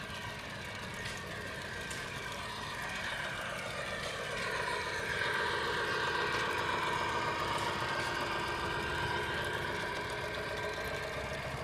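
Model train running on a layout, its motor whining with slowly shifting pitch. It gets louder around the middle, as if passing close, then eases off.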